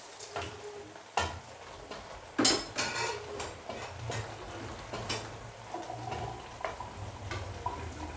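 Wooden spatula stirring broth in a metal wok, scraping and knocking against the pan in scattered clacks. The loudest clacks come about two and a half to three seconds in, over a low steady hum.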